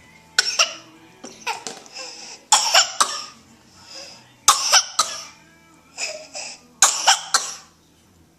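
A young girl coughing repeatedly: about seven bursts spread over several seconds, some single coughs and some quick runs of two or three, with short pauses between.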